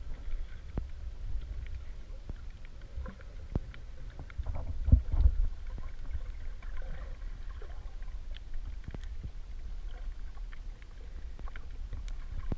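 Underwater ambience: a steady low rumble of moving water with scattered sharp clicks. The rumble swells louder for about a second, a little under five seconds in.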